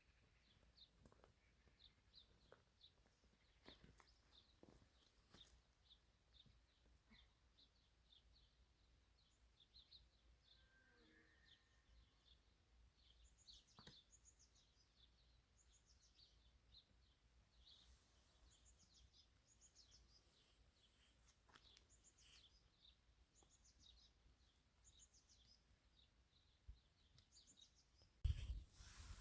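Faint birds chirping, many short high chirps repeating, with a louder thump about a second before the end.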